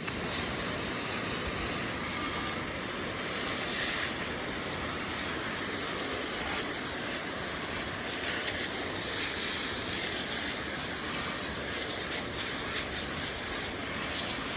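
Steady hiss of a water spray rinsing wheel cleaner off car wheels, starting suddenly and running without a break.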